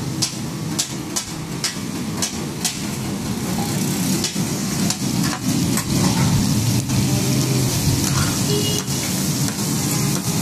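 Metal spatulas clacking and scraping on a large flat iron griddle as taka tak meat is chopped and stirred, a few sharp clacks a second, over a steady sizzle of meat frying in fat.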